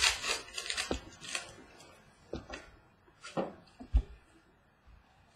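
Trading-card pack wrapper and cards rustling and crinkling in the hands for about the first second. Then a few light knocks of packs and cards set down on the wooden tabletop, the sharpest about four seconds in.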